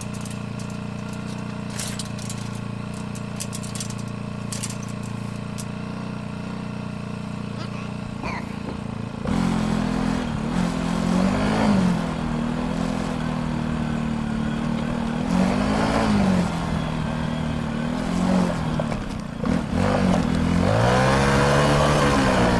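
Polaris Ranger side-by-side's engine idling steadily, with a few light clicks, then about nine seconds in it picks up and drives off, its pitch rising and falling again and again as the throttle is opened and eased.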